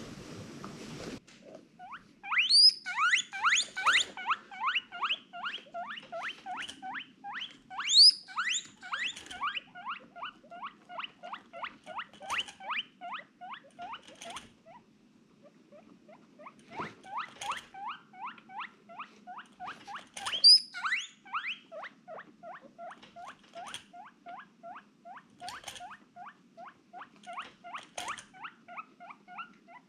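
Guinea pig wheeking: long runs of short, repeated squeaks, about four a second, broken by a pause of about two seconds midway. Three louder, higher squeals rise sharply, about two seconds in, about eight seconds in, and about twenty seconds in.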